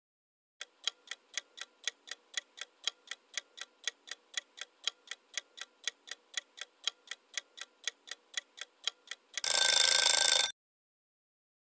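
Countdown-timer sound effect: a clock ticking evenly about four times a second, then a short, louder alarm-bell ring of about a second near the end that marks time up.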